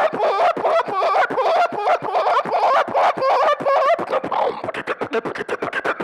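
Human beatboxing into a handheld microphone: a fast run of clicks and percussive mouth sounds, with pitched vocal tones that bend up and down woven through them.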